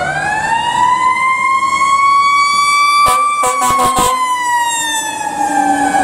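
A heavy rescue fire truck's Federal Q mechanical siren spins up to a high wail and then slowly winds down. A few short air horn blasts come in about three to four seconds in.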